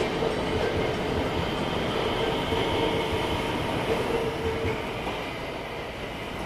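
JR West 225 series electric train running along a station platform: steady wheel and rail rumble with a motor whine held on one pitch, easing slightly near the end.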